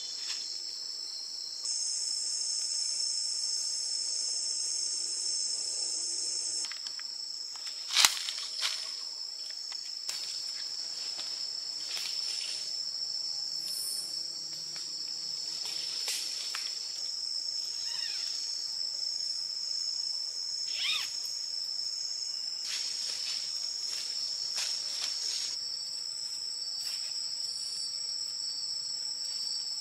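Forest insect chorus: a steady, high-pitched buzzing drone, with a second, higher insect joining from about two to seven seconds in. A single sharp click about eight seconds in, with soft scattered knocks and rustles.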